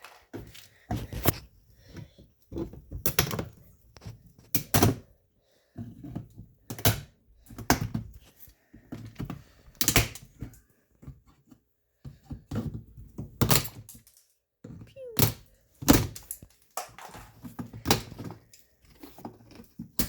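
Repeated blows knocking and breaking out the plastic mounting around the factory speaker in a Smart car door: a long, irregular series of sharp thunks and cracks, roughly one or two a second.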